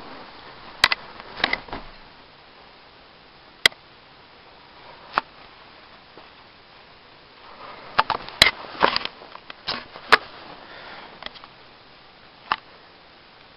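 Scattered short clicks and small knocks over a steady hiss, with a busy cluster about eight to ten seconds in.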